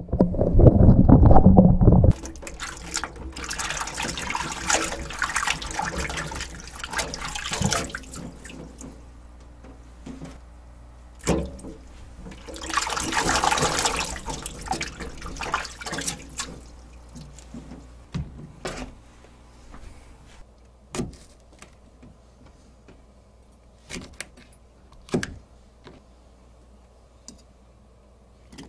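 Water running into a bowl in a stainless steel sink and splashing as hands rinse raw chicken pieces, loudest about halfway through. It opens with a couple of seconds of loud rumbling handling noise and ends with scattered sharp knife clicks on a cutting board.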